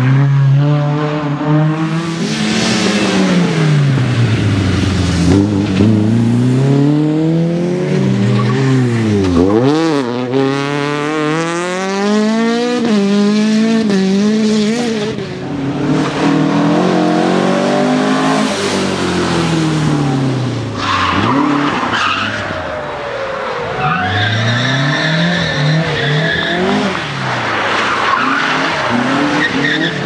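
Historic Opel rally car engines at full throttle, pitch climbing and falling with each gear change as the cars sweep past, with tyres squealing and skidding near the end.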